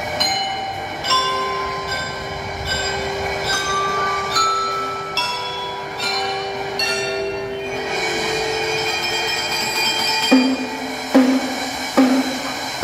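A slow melody of single notes struck with mallets on a metallophone's metal bars, each note ringing on. Near the end three drum strokes come in.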